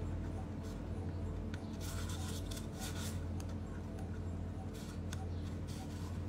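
A pen writing on the curved side of a paper coffee cup, its tip scratching and rubbing in short strokes, busiest a couple of seconds in and again near the end. A steady low hum runs underneath.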